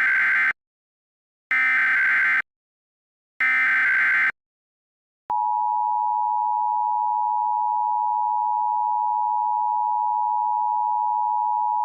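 Emergency Alert System header and attention signal: three short data bursts of the SAME header, each about a second long with a second's gap between, the first already under way. About five seconds in, the steady two-tone EAS attention tone begins and holds.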